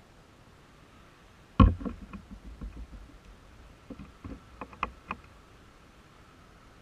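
A single sharp knock about one and a half seconds in, followed by a scatter of smaller irregular clicks and taps, over a quiet background with no engine running.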